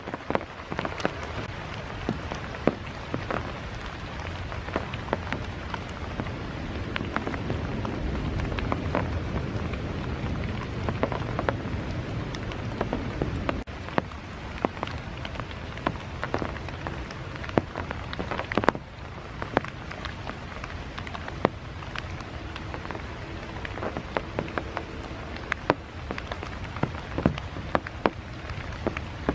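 Heavy rain falling steadily, with frequent sharp taps of drops striking close to the microphone. A low rumble swells in the middle and fades again.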